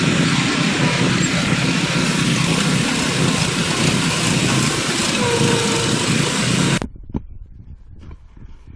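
A loud, steady running noise like an engine or motor, which cuts off abruptly near the end, followed by a few faint clicks.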